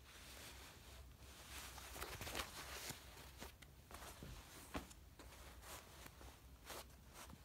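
Faint handling noise: a soft rustle about two seconds in, then a few light clicks.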